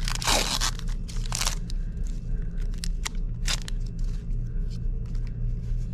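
Foil Pokémon booster pack wrapper crinkling and being torn open: irregular short crackles, the longest and loudest right at the start, over a steady low hum.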